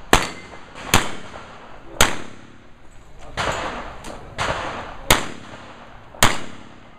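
Revolver shots fired in a string at steel targets, about one a second, each a sharp crack with a short echoing tail. A few weaker shots come in between, near the middle.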